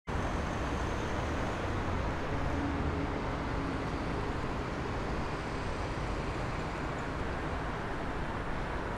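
Steady hum of light road traffic on a wide city avenue, with a faint engine tone that rises a little a few seconds in.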